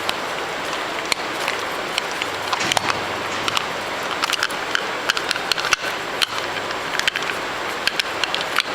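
Irregular clicks and knocks of a bike rack's locking assembly being handled as its handle is turned and the bolt is worked out, over a steady hiss.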